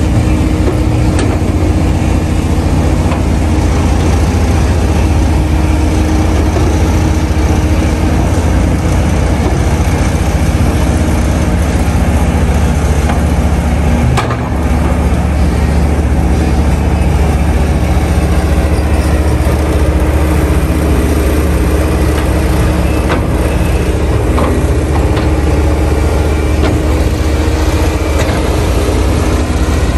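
Kobelco SK200 hydraulic excavator's diesel engine running steadily as it digs, with a few sharp knocks scattered through. The sound dips briefly about halfway.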